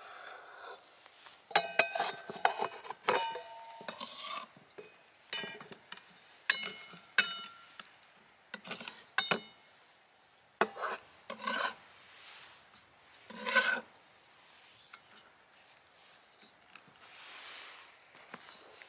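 A large kitchen knife and raw beef being handled on a bamboo cutting board and in a stainless steel bowl: scattered knocks, scrapes and clinks in irregular clusters, several with a short metallic ring.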